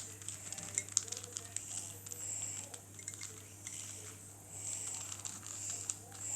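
Plastic 4x4 Rubik's Cube being turned by hand: a run of quick clicks and short scraping swishes as its layers are rotated.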